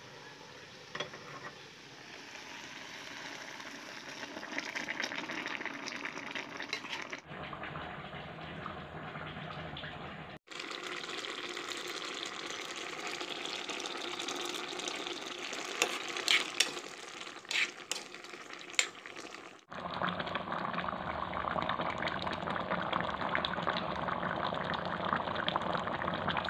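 Rice bubbling at a boil in an aluminium saucepan, then mutton head curry bubbling and simmering in a metal karahi, the sound changing abruptly at a few edits. A few sharp clicks come about two-thirds of the way through.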